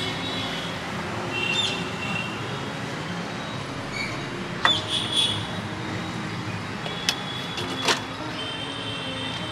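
Steady street traffic noise, with a few short high-pitched tones and several sharp clicks.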